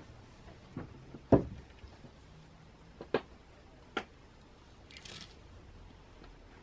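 A few short, sharp knocks and clicks, the loudest a dull thump about a second and a half in, followed near the end by a brief soft rustle.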